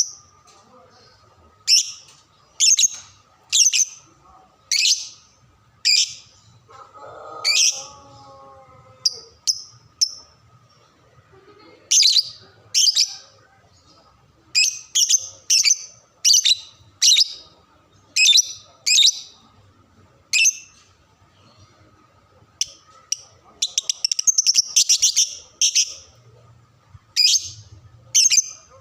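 Lovebird calling in short, sharp, high-pitched chirps, about one a second, breaking into a fast rattling run of notes late on.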